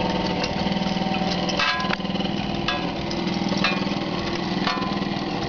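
Small electric motor of a bucket-chain water lift humming steadily, with a light clack about once a second as the chain and buckets move.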